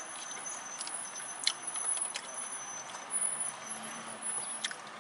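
Eating sounds: a few sharp clicks and crinkles from a plastic fork scraping aluminium foil around tacos, over steady vehicle noise in the background.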